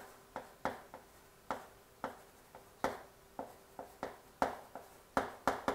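Chalk tapping and scratching on a chalkboard while numbers and letters are written: a string of short, sharp taps, irregular at about three a second.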